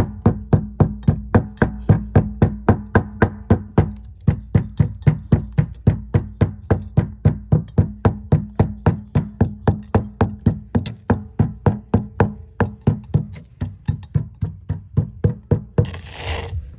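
Background music with a fast, steady knocking beat of about four strokes a second over a low held tone, with a short rushing noise near the end.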